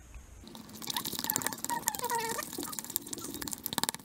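Glue-and-borax slime being stirred in ceramic bowls with a plastic spatula and a wooden stick: wet, sticky clicking and crackling that starts about half a second in, with a few short squeaks in the middle.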